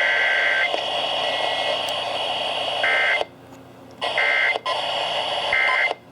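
Emergency Alert System SAME digital data bursts heard over AM radio, two-tone squeals over a background of static. A long burst comes at the start, then three short bursts about a second and a half apart, the pattern of the end-of-message code. The station audio cuts out briefly twice.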